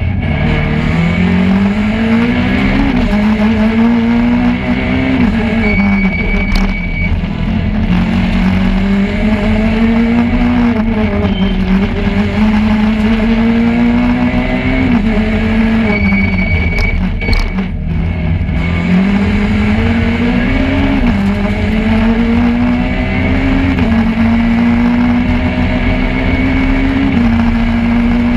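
Peugeot 208 R2 rally car's 1.6-litre four-cylinder engine heard from inside the cabin at full stage pace. The engine note climbs again and again under acceleration and drops sharply at each gear change or lift, every few seconds, over constant road noise.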